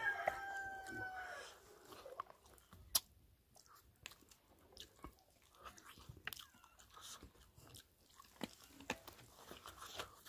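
Close-up chewing and biting on pig's feet: scattered wet clicks and crunches, with one sharp click about three seconds in. A rooster's crow trails off in the first second and a half.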